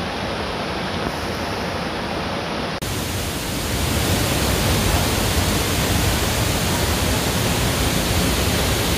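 Steady rushing of a fast river running over rocky rapids. About three seconds in, the sound cuts to a louder, even hiss.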